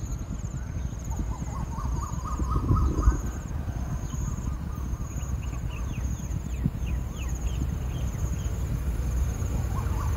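Birds calling in runs of short chirps, over the steady pulsing buzz of insects and a low rumble of wind on the microphone.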